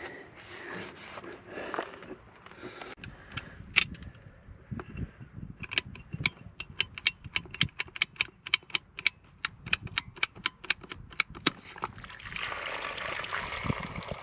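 A quick, even run of sharp clicks, about four a second, for around six seconds during work on a broken water pipe, followed near the end by water starting to run and trickle in the excavation.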